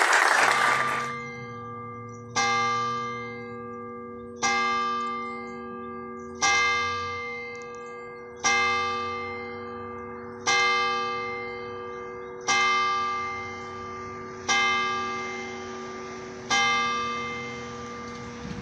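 A single church bell tolling slowly, struck eight times about every two seconds, each stroke ringing on and fading before the next. It follows a burst of applause that dies away in the first second or so.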